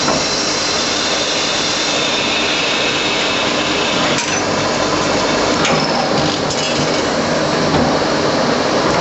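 Traub A25 automatic lathe running, a steady machining noise, with a few sharp clicks about four seconds in and again around six seconds in.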